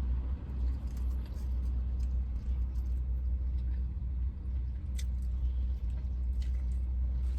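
Steady low rumble of an idling vehicle heard from inside the truck cab, with a few faint clicks.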